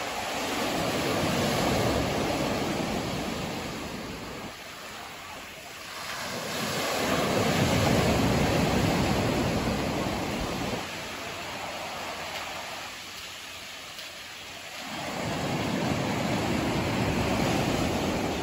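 Sea surf breaking and washing up a sandy beach, swelling and fading in three slow waves several seconds apart.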